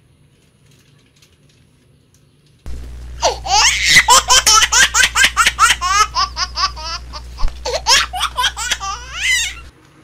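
High-pitched laughter in quick repeated bursts, dubbed over the picture. It starts abruptly about three seconds in and cuts off just before the end.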